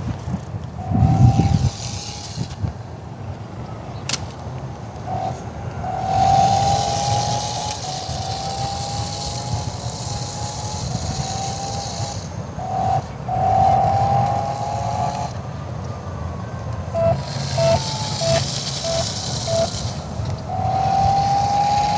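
RC drift car's motor whining in repeated bursts of throttle, the pitch rising a little in each burst. Near the end there is a run of short, evenly spaced blips.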